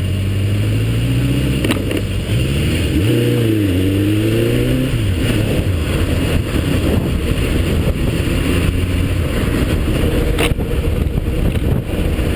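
Motorcycle engine revving through the gears, its pitch rising and dipping between about one and five seconds in, then running steadily under road and wind noise.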